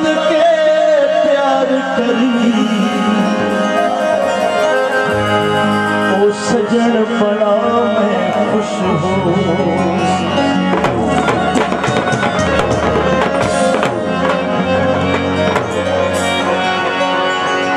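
Live Saraiki folk music: harmoniums with tabla and a bansuri flute. The tabla comes in with steady strokes about five seconds in and plays fast, dense strokes from about ten seconds in.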